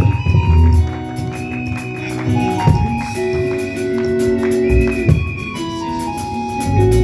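Church worship band playing: held keyboard chords changing every second or two over bass, with a tambourine shaking steadily.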